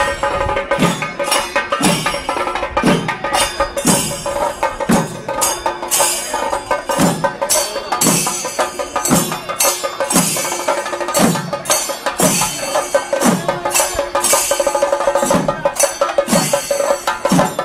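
Chenda melam: a troupe of Kerala chenda drummers playing dense, fast stick strokes, with a deep beat that falls in pitch about once a second. A steady held tone sounds above the drums throughout.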